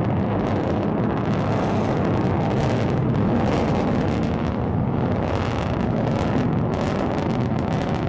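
Rokot rocket's first-stage engines during ascent: a loud, steady deep rumble with irregular crackling on top.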